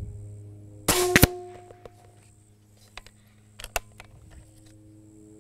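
Benjamin Bulldog .357 PCP air rifle firing one shot about a second in: a sharp crack with a brief ringing tail. A few faint clicks follow a couple of seconds later.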